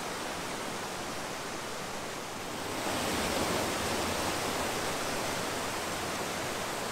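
Small waterfall cascading over bedrock in its own carved channel: a steady rushing of white water that grows a little louder just under three seconds in.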